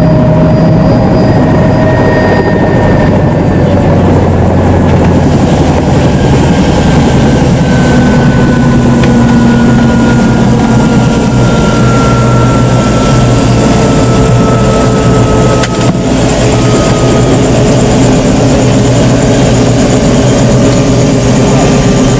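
Helicopter engine and rotor heard from inside the cabin while it sets down on a grass field: a loud, steady din, with a faint whine that slowly falls in pitch.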